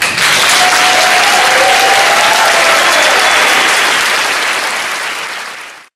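Audience applauding steadily, easing off slightly near the end and then cut off abruptly.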